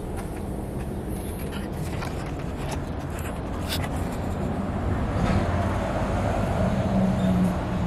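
A motor vehicle's low engine hum over a steady outdoor rumble, growing louder about five seconds in and falling away near the end.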